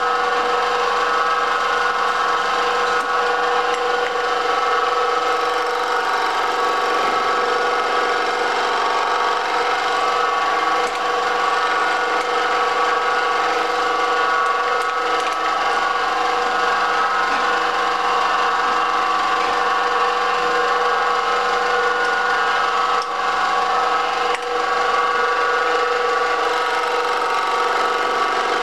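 Benchtop mini milling machine running steadily with an even, whining motor tone while its cutter mills serrations into a rosette blank.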